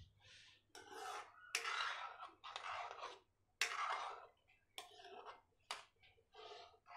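Steel spoon scraping across the bottom of a metal kadhai while stirring a thin tomato gravy: a run of about nine rasping strokes, roughly one a second, with short pauses between.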